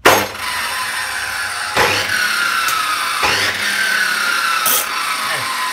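Panda abrasive cut-off saw switched on with a sudden start, then running and grinding into steel. A loud grinding hiss carries a high whine that slowly falls in pitch, twice, with sharp knocks a little under two seconds and about three and a quarter seconds in.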